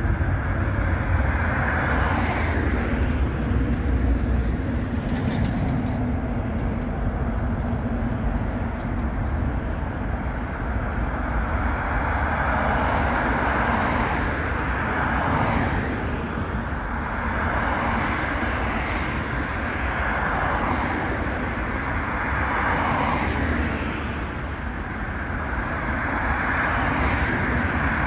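Road traffic passing close by: cars and lorries going past one after another, their tyre and engine noise swelling and fading every few seconds over a steady low rumble.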